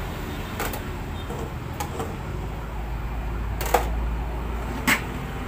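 Aluminium pot lids clinking against the pots as a lid is lifted off a stack: four short metallic clinks, the loudest a little past halfway, over a steady low hum.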